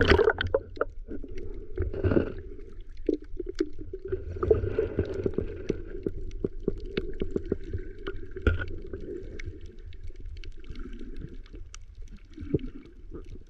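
Muffled underwater sound picked up by a GoPro held below the surface: a steady low rumble of moving water with many scattered short clicks and crackles.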